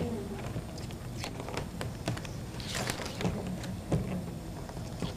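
Round reed weavers and spokes rustling and clicking irregularly as they are woven over one, under two by hand, over a faint steady low hum.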